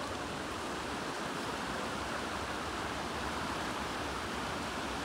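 Steady rush of a river flowing over a stony bed.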